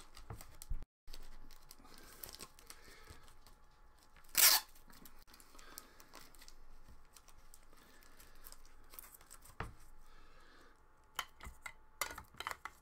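Cardboard trading-card hobby box being handled and torn open: one short loud rip about four seconds in, then light rustling and clicks near the end.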